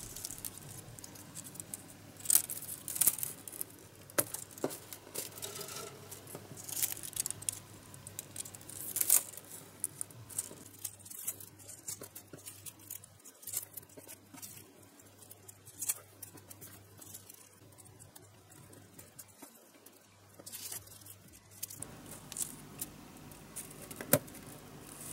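Thin bamboo strips clicking and scraping against each other and the wooden tabletop as they are woven by hand: irregular light ticks and rustles, sparser in the middle stretch.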